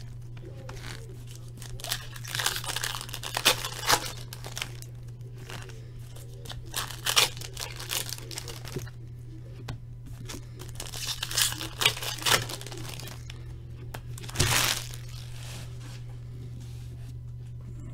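Foil hockey card pack wrappers crinkling and tearing and cards being handled, in irregular bursts of crackle with short pauses between.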